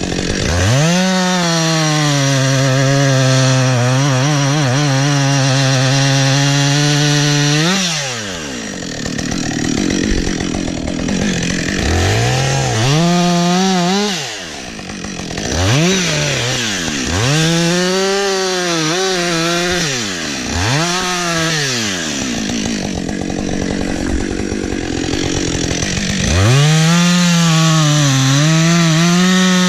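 Chainsaw revved to full throttle and cutting wood, dropping back toward idle between cuts. One long cut runs for about the first eight seconds, then come four short bursts of revving, and near the end another long cut.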